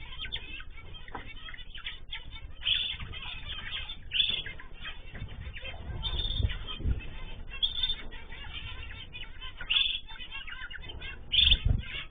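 Cage birds (cockatiels, zebra finches and canaries) chirping in short loud calls every second or two, with wing flapping and a few low thumps.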